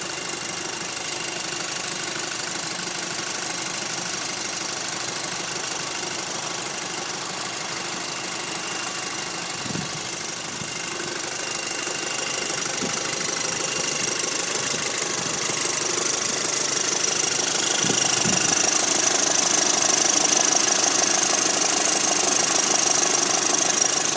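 2006 Volkswagen Golf GTI Mk5's 2.0-litre turbocharged four-cylinder engine idling with a strange rattle. It grows louder in the second half.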